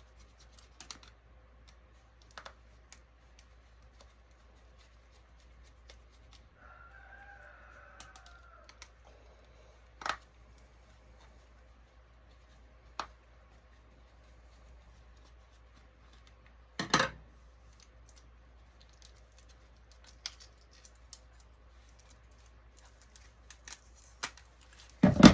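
Sporadic small clicks and taps of hand tools and loose plastic and metal parts as an electronic touchscreen panel is taken apart, with two louder knocks, one past the middle and one at the very end. A faint brief squeak sounds about seven seconds in.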